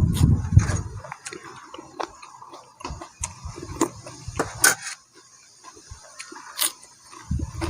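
Strong wind buffeting the microphone with a low rumble, dropping away about a second in and returning near the end. In between, scattered small clicks and taps.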